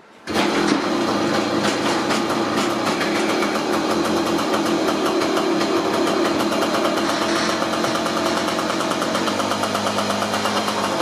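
Puch X30 moped's small single-cylinder two-stroke engine, fitted with its correct moped-version exhaust, starting up just after the beginning and then running steadily on a test run.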